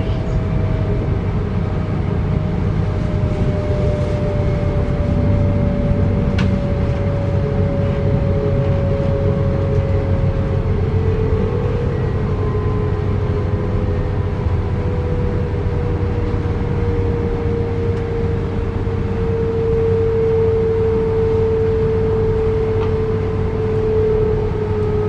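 Inside a DB Class 425 electric multiple unit on the move: a steady low rumble of wheels on the rails, with an electric traction-motor whine that falls slowly in pitch as the train slows.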